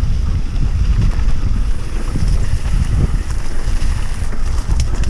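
Wind buffeting the microphone of a camera on a mountain bike being ridden: a loud, steady low rumble with faint rattles and clicks.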